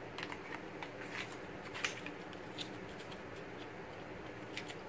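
Quiet handling sounds: scattered small clicks and soft rustles of lipstick and packaging being handled, over a steady low room hum.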